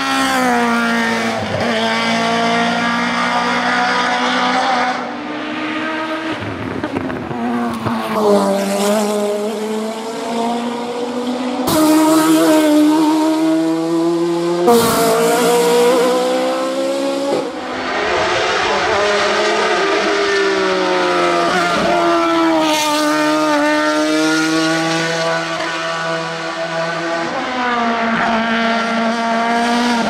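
Hillclimb race cars' engines running at high revs, one car after another, the engine note climbing and dropping sharply with gear changes. The note changes abruptly several times as a different car takes over.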